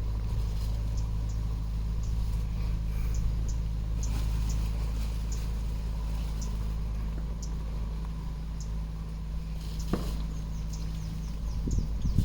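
A steady low mechanical hum, like a motor running, with short high bird chirps scattered over it. A single sharp click comes about ten seconds in.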